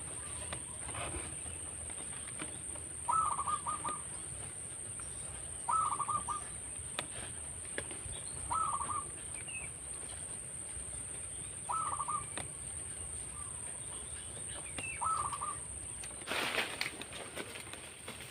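Zebra dove (perkutut) cooing: a short trilled call repeated five times, about every three seconds. A brief loud rustling burst comes near the end.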